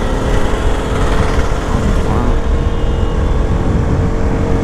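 Motorcycle riding at speed on a highway: the engine running at a steady pitch under the rumble of wind and road noise on the rider's microphone.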